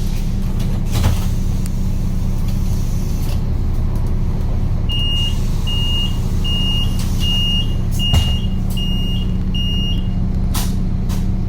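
A vehicle's engine running steadily, with a warning beeper sounding seven short high beeps at an even pace midway through and two short knocks.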